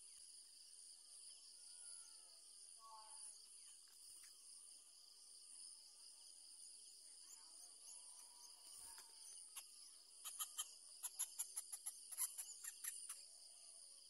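Faint, steady high-pitched insect trilling, with a quick run of about fifteen sharp clicks or chips roughly ten seconds in.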